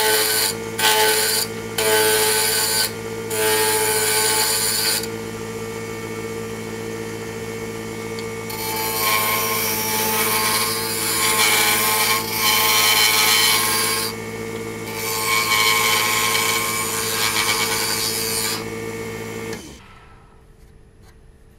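Wood lathe spinning a zebrano pen blank at high speed while a carbide turning tool cuts it down, giving loud scraping cutting noise in short bursts at first and then in longer passes over the steady motor hum. The lathe is switched off near the end, and the hum cuts off.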